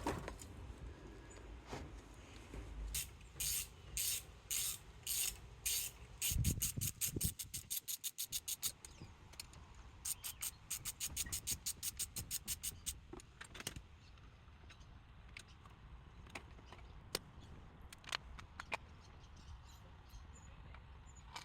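Ratchet wrench with an 8mm socket clicking as bolts are undone. There are several runs of steady clicks, the fastest about eight a second, then a few single ticks near the end.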